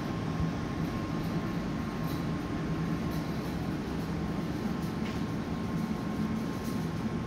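Steady low rumbling background noise with a thin, faint steady whine above it and a few light ticks.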